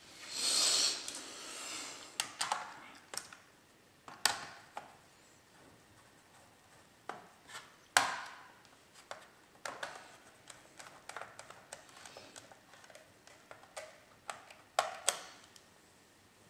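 Hard plastic clicks and taps as a laptop's memory-bay access cover is set over the bay and pressed into place, with a rustle of handling at the start. The sharpest click comes about halfway through.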